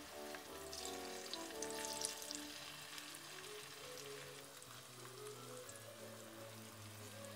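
Food frying in hot oil in a pan, sizzling with sharp crackles that are strongest in the first couple of seconds, over soft background music.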